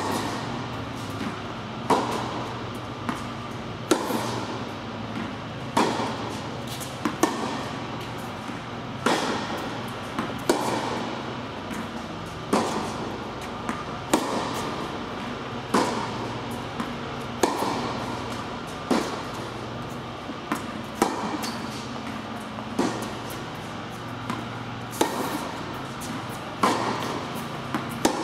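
Tennis rally: a sharp racket-on-ball strike about every one and a half to two seconds, with quieter ball bounces in between, each echoing around an indoor tennis hall.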